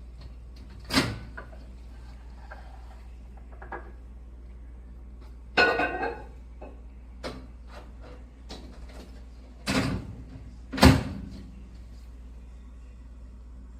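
A handful of sharp clunks and knocks, like a microwave door being opened and shut and things being handled, over a steady low hum. There is a rattly cluster midway, and the loudest clunk comes near the end.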